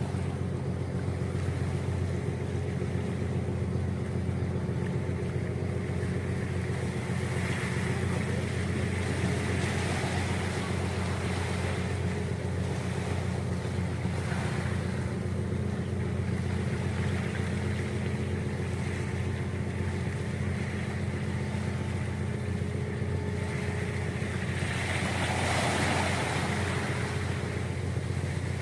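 Roll-on/roll-off ferry's engines running with a steady low drone, with a rushing of wind and water swelling up twice over it.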